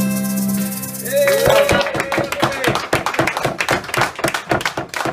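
Harmonica and accordion hold the last chord of a tune, which stops about a second in. A small group then claps, with a whooping cheer just after the music stops.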